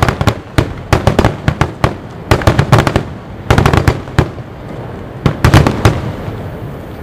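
Fireworks exploding in quick clusters of sharp cracking bangs, a new volley about every second, with a rolling echo trailing off near the end.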